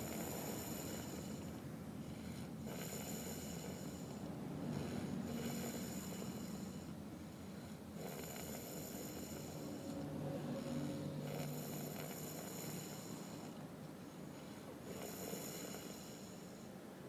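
Snoring: rasping breaths repeating every few seconds, about six in all, some with a low buzzing rattle.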